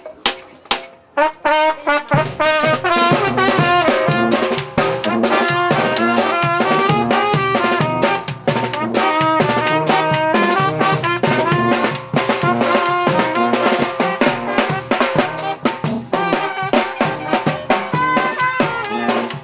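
Small wind band playing: trumpet and clarinet carry the melody over a bass drum with cymbal and a snare drum. A few drum and cymbal strokes open it, and the full band comes in about two seconds in.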